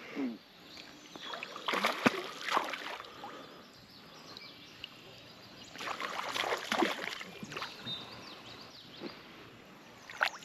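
Water splashing in two bouts, about two seconds in and again around six seconds, as a hooked smallmouth bass is fought close in on a tenkara line.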